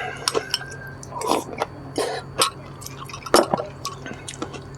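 Close-up eating sounds: wet chewing and crunching of lettuce-wrap mouthfuls, with many short clicks of cutlery against dishes, over a steady low hum.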